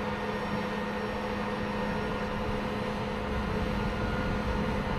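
M1 Abrams tank's gas turbine engine running steadily, a constant hum with a fixed whine over a low rumble.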